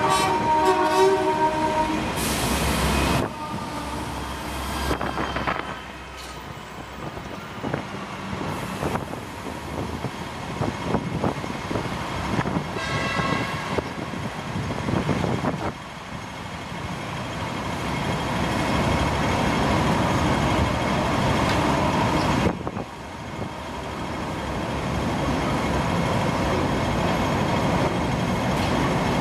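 Double-decker electric tram pulling away around the terminus loop, with a ringing tone of several pitches for about the first two seconds. Then general street traffic: the engines and tyres of passing vehicles, swelling twice as vehicles go by.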